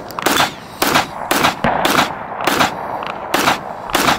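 Rifle gunfire: about eight sharp shots in quick succession, roughly half a second apart, each followed by a short echo.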